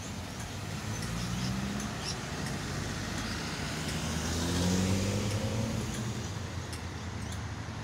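Road traffic passing close by: cars and a van driving along the street. The loudest pass comes about four to five seconds in, with an engine note rising in pitch.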